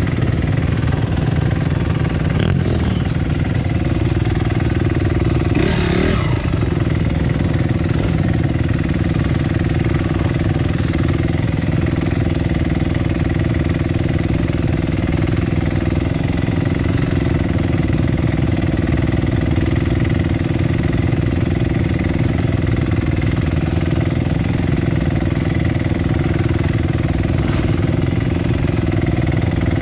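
Trail motorcycle engine running steadily at a fairly even speed, with a brief rise and fall in pitch about six seconds in.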